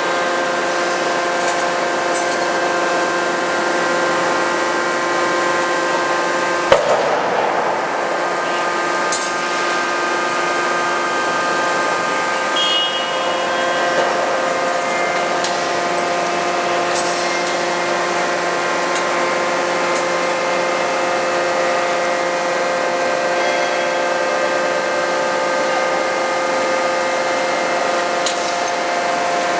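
Forging machinery running with a steady hum of several held tones. A single heavy blow of the 200 kJ CNC die-forging hammer lands about seven seconds in, and a few light metallic clicks follow.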